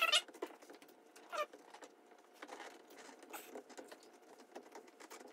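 Faint, irregular rustling and crackling of a sheet of marine vinyl leatherette being handled and rolled down by hand onto contact-cemented dashboard foam, with a louder brief sound at the start and another about a second and a half in.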